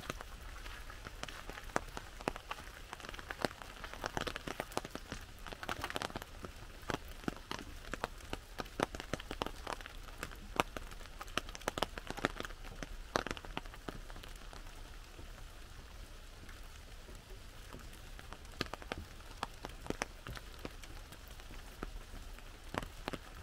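Raindrops tapping on an umbrella overhead: irregular sharp taps over a steady hiss of rain, dense in the first half and thinning out after the middle.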